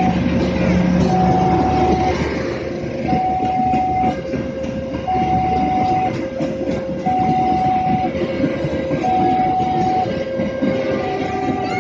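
Railway level-crossing warning alarm sounding two alternating tones, high then low, each held about a second, over the rumble of a passing train.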